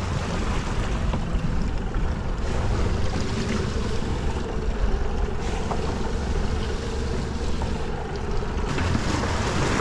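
Honda 150 outboard motor running slowly in gear, a steady low hum under wind buffeting the microphone and choppy water around the boat.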